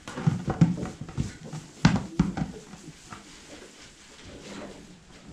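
Goats in a barn stall: several sharp knocks and thumps in the first two and a half seconds, then quieter.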